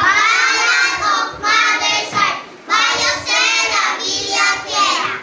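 A chorus of children's voices in unison, delivering a verse in several phrases with short breaks between them.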